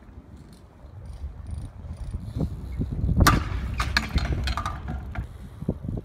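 BMX bike rolling over concrete with a low rumble from the tyres. About three seconds in comes a sharp metallic clack, followed by a few lighter knocks and clatters as the bike meets a ledge and lands.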